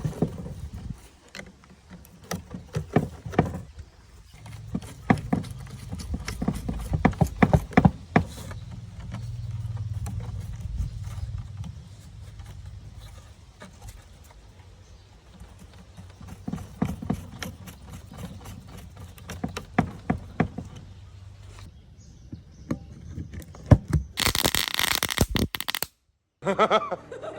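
Irregular clicks, knocks and scrapes from tools and parts being handled, over a low steady hum, with a loud hissing burst of about two seconds near the end.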